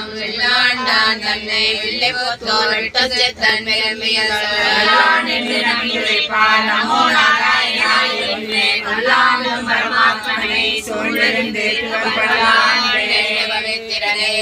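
A group of men and women chanting a Tamil Vaishnava hymn in unison, a sung devotional parayanam recitation that carries on without a break.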